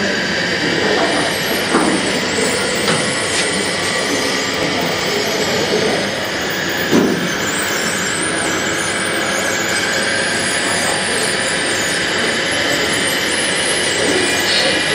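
Radio-controlled model bulldozers running, including a white Komatsu crawler dozer: a steady whine of small drive motors and gearboxes, rising and falling in pitch as they push sand. A short knock sounds about seven seconds in.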